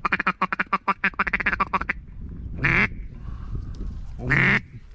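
Hand-blown duck call: a fast run of about fifteen short quacks in the first two seconds, then two single longer quacks, calling to passing ducks to bring them in.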